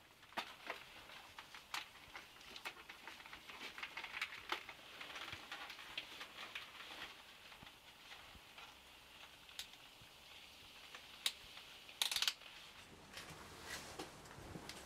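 Faint rustling and scattered sharp clicks of a motorcyclist putting on his riding jacket and fastening his helmet, with a brief louder rustle about twelve seconds in.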